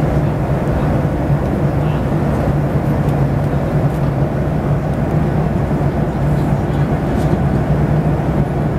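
Jet airliner cabin noise in cruise: a loud, steady rush of engine and airflow with a low hum underneath.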